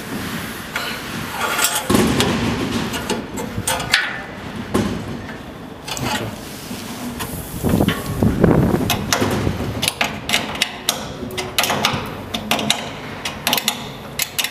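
Wittur Hydra elevator landing door panels sliding along their aluminium sill track, with rumbling runs a few times and many sharp metallic clicks and knocks.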